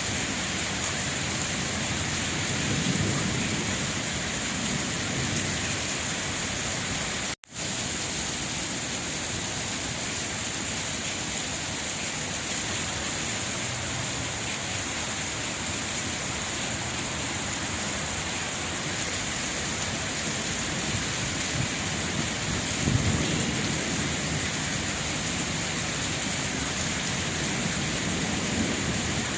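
Steady heavy rain, with low rumbles of distant thunder about three seconds in and again around twenty-three seconds in. The sound drops out for a split second about seven seconds in.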